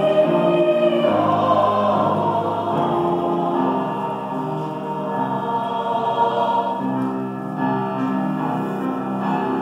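Mixed-voice high school chamber choir singing sustained chords in several parts, with grand piano accompaniment.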